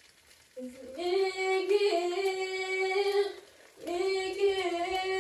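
A woman singing without accompaniment, two long drawn-out notes with a short breath between them, the second beginning just under four seconds in.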